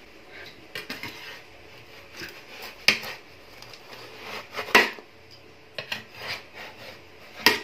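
A metal spatula scraping and rubbing on a metal oven tray as it is worked under a baked pizza, with scattered small clinks and three sharper knocks about three, five and seven and a half seconds in.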